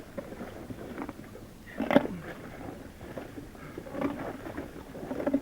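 A person grunting and gasping while struggling in icy water, with splashing and knocks; the loudest is a short falling cry about two seconds in.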